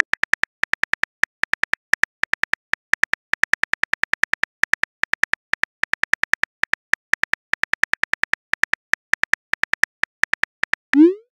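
Phone keyboard clicks from a texting animation: a quick run of short ticks, several a second, as a message is typed out letter by letter. Near the end comes a short rising swoosh as the message is sent.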